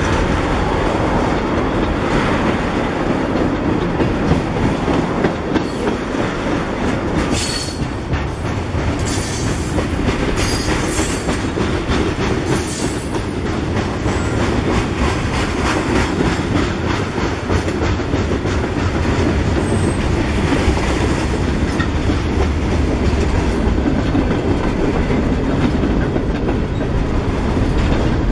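Freight train passing at close range: the cars' wheels clatter over the rail joints in a steady run of clicks, with a few brief high-pitched wheel squeals between about seven and thirteen seconds in.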